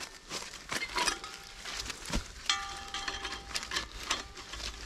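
Metal clicks and clinks from handling a steel foot-snare trap for wild boar and its wire snare cable as the snare is fitted around the trap plate, with one clink a little past halfway that rings on for over a second.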